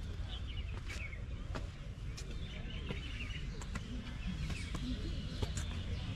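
Small birds chirping and twittering over a steady low rumble, with a scatter of short sharp clicks.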